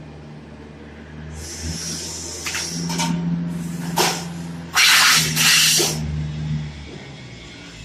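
HVAC duct production line machinery running: a steady low motor hum with bursts of hissing, the loudest about five seconds in, and a few sharp clicks.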